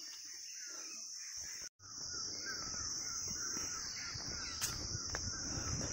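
Steady high-pitched insect buzz, with faint repeated short bird calls. The sound cuts out completely for a moment about two seconds in.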